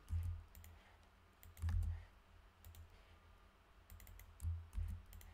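Scattered computer keyboard keystrokes and mouse clicks, with a few short low thumps.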